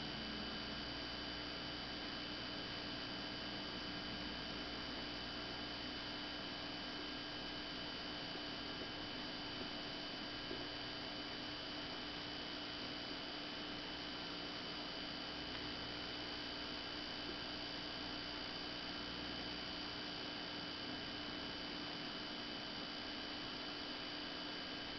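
Steady electrical hum and hiss, with several high steady whining tones and no distinct events.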